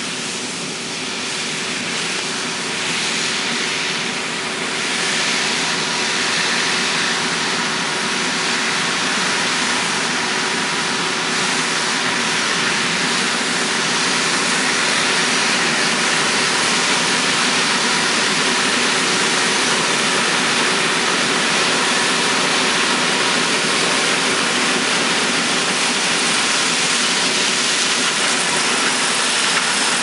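Combine harvester harvesting corn with a tractor and grain cart alongside: the steady running of the combine's engine and threshing machinery, with faint steady whines, growing louder over the first half as the machines approach.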